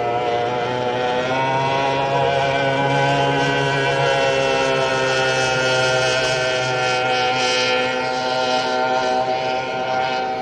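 Racing powerboat's engine running flat out at high revs, a steady high-pitched whine with strong overtones. Its pitch edges up slightly about a second in and eases down near the end.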